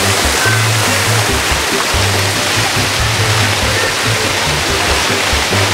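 Steady rush of water falling from an artificial rock waterfall into a shallow splash pool, with background music and its bass line playing over it.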